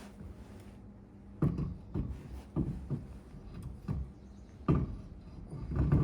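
Irregular knocks and clunks, about eight of them, starting after a second or so and loudest near the end, as tools and parts are handled during a brake job. A steady low hum runs underneath.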